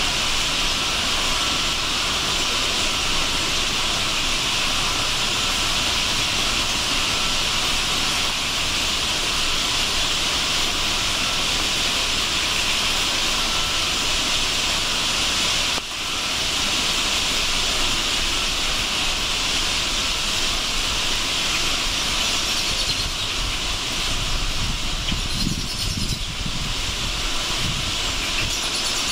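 Massed calling of a huge flock of bramblings, thousands of birds at once, merging into a steady high hissing chatter. A brief low rumble comes about 25 seconds in.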